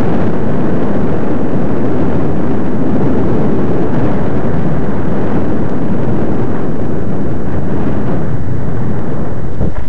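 Loud, steady rushing noise of a moving vehicle: wind and road noise at the microphone, with no distinct engine note or impacts.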